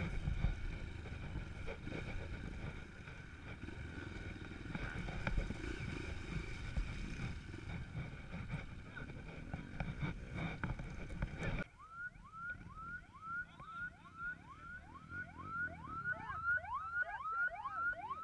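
Off-road dirt bike engines running at idle or low speed with a steady rumble. About twelve seconds in the engine noise cuts off abruptly, and a bird calls in a series of short rising-and-falling notes, about two a second, coming faster toward the end.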